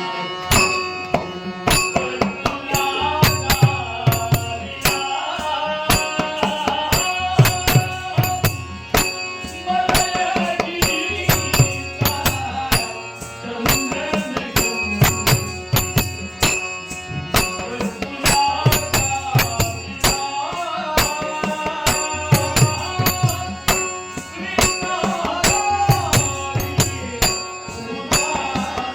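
Devotional bhajan music: pakhwaj drum strokes and small jingling hand cymbals keep a steady rhythm under a bending melodic line.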